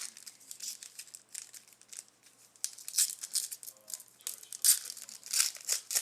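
Football trading cards and their packaging being handled: irregular rustling, crinkling and sliding scrapes as cards are flipped through, a little louder about halfway and again near the end.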